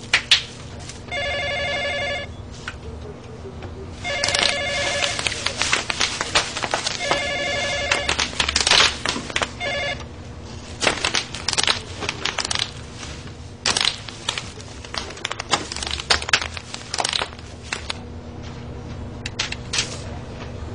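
Office telephone ringing in warbling electronic trills, a burst about every three seconds for the first ten seconds, the last one cut short. Throughout there is fast clicking and clattering of typing.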